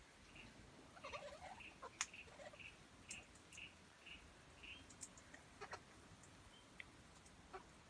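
Faint bird notes, short and soft, repeated about twice a second for a few seconds, with a few scattered soft clicks.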